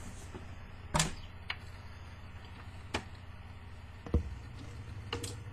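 Admiral 432 automatic record changer cycling after being set to reject: a low steady hum with a series of about five mechanical clicks and clunks as it drops a record onto the platter and swings the tonearm onto it. The loudest clunk comes about a second in.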